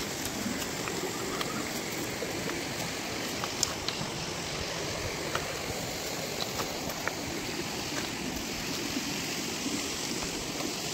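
A small hillside stream flowing after rain: a steady rush of running water, with a few scattered sharp clicks.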